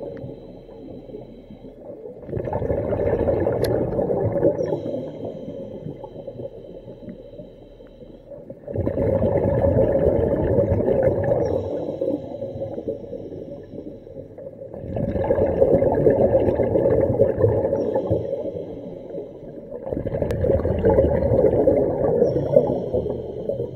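A diver breathing underwater through the demand regulator of a hookah (surface-supplied air) rig. Each inhale draws a faint high whistling hiss through the valve, and each exhale is a loud gush of bubbles. There are four breaths, about six seconds apart.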